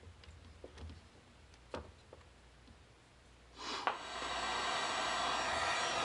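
A few light clicks of pliers and small parts being handled, then about three and a half seconds in an electric heat gun switches on with a knock and runs with a steady blowing noise, shrinking heat-shrink tubing over a crimped wire connector.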